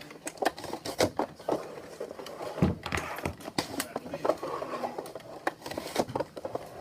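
Plastic potato slicer of a microwave chip maker being worked over and over, a quick irregular run of clicks, knocks and scrapes as the potato is pressed, twisted and slid across the blade.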